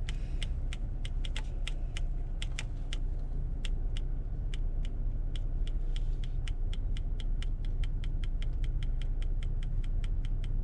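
Quick, unevenly spaced light clicks, several a second, over the steady low hum of a car idling.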